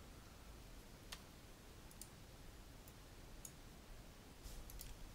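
Faint computer mouse button clicks over quiet room hiss: a few single clicks spread apart, then several in quick succession near the end.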